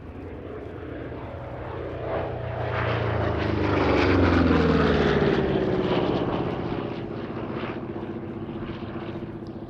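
Republic P-47 Thunderbolt's Pratt & Whitney R-2800 radial engine on a fly-by: the engine note builds to its loudest about four seconds in, then drops in pitch and fades as the aircraft goes away.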